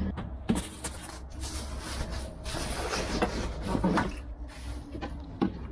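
Handling noise: fabric rustling with a few light knocks and clicks as a padded seat cushion is shifted about in a wooden cockpit.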